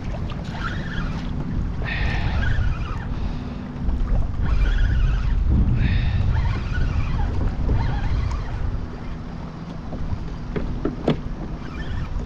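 Wind buffeting the microphone over choppy water lapping against a plastic kayak hull, with a few sharp clicks near the end.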